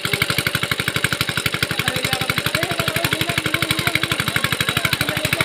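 Small engine running steadily with an even, rapid chug of about ten beats a second.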